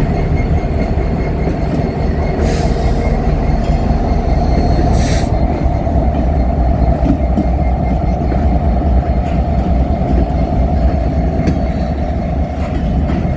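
Freight train rolling past: a steady, loud rumble of wheels on rail, with faint wheel squeal and two brief hissy bursts, one about two and a half seconds in and one about five seconds in.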